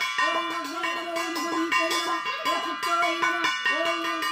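Puja hand bell rung continuously with rapid strikes, with a voice going on over it in a short repeating pitch pattern.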